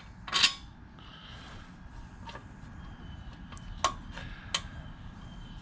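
Hands fitting a new carburetor and its mounting screws onto a small engine's intake. There is a short, louder handling noise about half a second in, then a few sharp metal clicks and taps.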